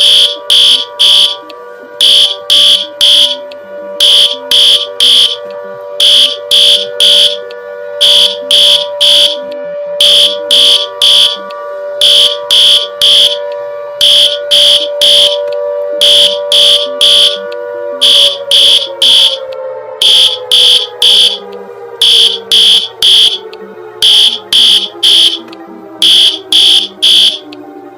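Electronic emergency alert alarm: groups of three high, shrill beeps, repeating about every two seconds, over a steady lower droning tone. In the last ten seconds the drone slowly falls in pitch while the beeps continue, and everything cuts off abruptly at the end.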